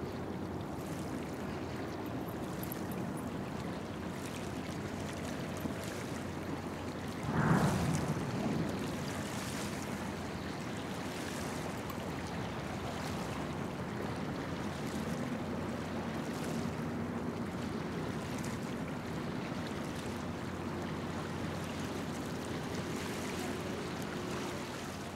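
Small waves lapping at the shore under a steady low hum from the container port's machinery, with one brief louder sound about seven seconds in.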